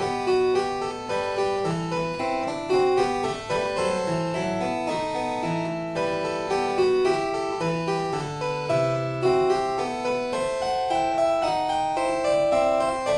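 Background music: a keyboard piece of quick, overlapping notes with no drums.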